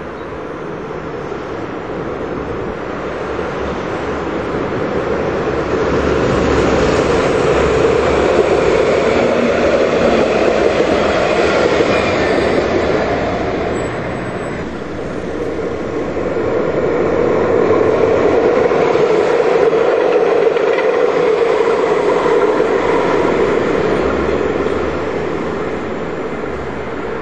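Luas light-rail tram running on the track, a rumbling rail noise that swells and fades twice.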